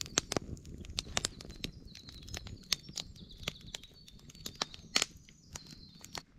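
Wood campfire of split logs crackling, with sharp irregular pops and snaps, several a second, the strongest about five seconds in, thinning out near the end. A faint high wavering tone runs underneath.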